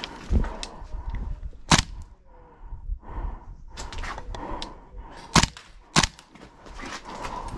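Gas-blowback airsoft rifle, a GHK SIG, firing single shots: three sharp cracks, one a couple of seconds in and two more near the end about half a second apart, with a few fainter cracks between.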